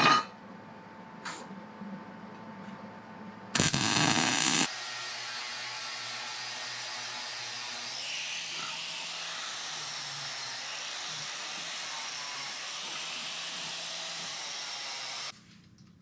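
A brief burst of wire-feed welding, a tack about a second long, about four seconds in. It is followed by a small angle grinder running steadily as it grinds the corners of the welded steel bracket, until it cuts off suddenly near the end.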